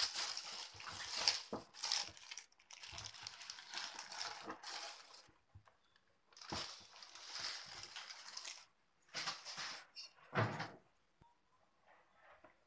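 Thin plastic carry bag rustling and crinkling in bursts as it is pulled off a cardboard cake box. A dull thump near the end.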